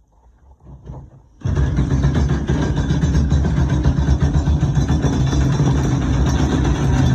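A motor-driven machine switches on abruptly about a second and a half in and runs loudly and steadily with a strong low hum.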